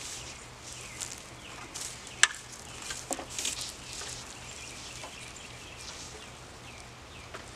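Scattered rustling and scraping of netting being dragged over a PVC pipe frame, with one sharp click a little over two seconds in.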